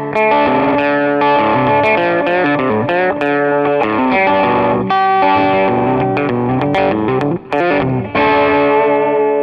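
Electric guitar strumming chords through a StewMac Ghost Drive, a Klon-style overdrive pedal, with a mild overdrive and added delay and reverb. The chords ring out, with one short break a little after seven seconds.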